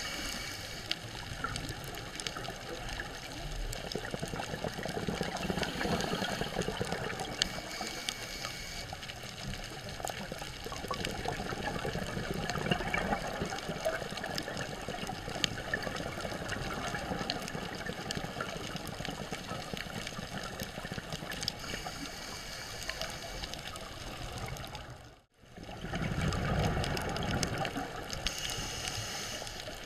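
Underwater ambience picked up by a dive camera in its housing: a steady watery hiss with scattered small clicks and crackles and slow swells of low rumble. It cuts out for a moment near the end.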